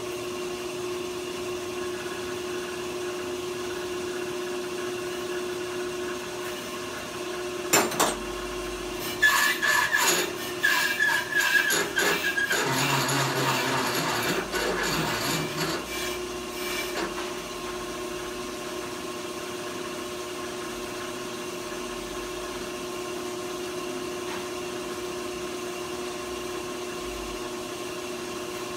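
Brake lathe motor running with a steady hum while turning a brake rotor. About eight seconds in there is a sharp click, followed by roughly nine seconds of irregular metal scraping and squealing before the steady hum resumes.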